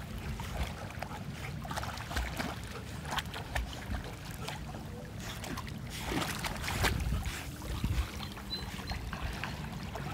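Water splashing and sloshing as dogs paddle through a shallow river, in irregular splashes over a steady low rumble.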